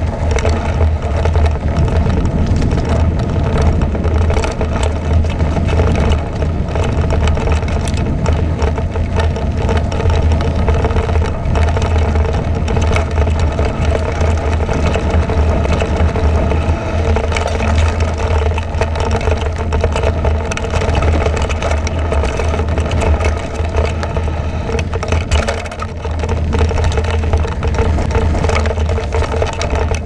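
Mountain bike ridden fast down a dirt forest trail: steady wind rumble on a bike-mounted camera's microphone, with frequent rattles and knocks from the bike over bumps and roots.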